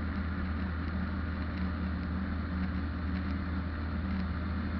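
Weight-shift ultralight trike's engine and pusher propeller running steadily in flight: an even drone with a low hum under a broad rushing noise.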